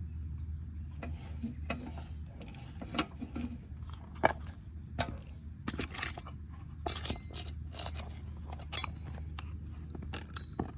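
Scattered light clicks, knocks and clinks, a dozen or so at uneven intervals, over a low steady hum.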